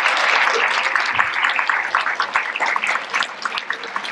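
Audience applauding, dense at first and thinning out to scattered claps near the end.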